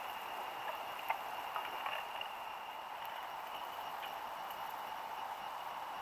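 Steady outdoor background hiss with a few faint small clicks between about one and two seconds in.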